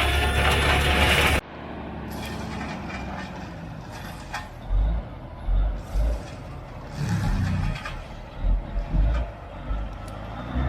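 A truck engine running, with irregular low thumps coming and going through the second half.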